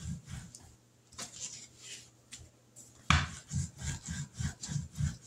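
A rolling pin worked back and forth over floured biscuit dough on a plastic cutting mat: a run of soft rolling strokes, stronger and about three a second from about three seconds in.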